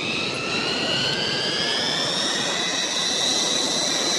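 Jet-pack sound effect: a steady jet rush with a whine that climbs in pitch as the packs lift off, then holds steady near the end.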